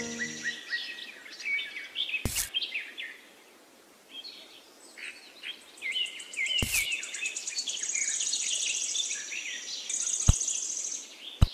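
Small birds chirping with quick high trills, dipping quiet for a moment about four seconds in. Four sharp clicks cut through, two of them loud near the end.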